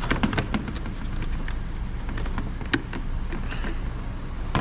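Clicks and knocks of plastic parts as a bulb socket is pushed into a turn-signal lamp housing and twisted to lock, over a steady low hum.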